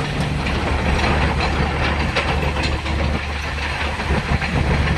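Doosan DX55 mini excavator's diesel engine running steadily under load as the machine pivots on its tracks, with repeated clanks and knocks from the undercarriage.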